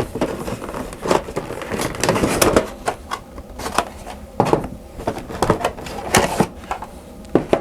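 Board game components being handled during unboxing: cardboard and plastic rustling, with irregular knocks and clicks.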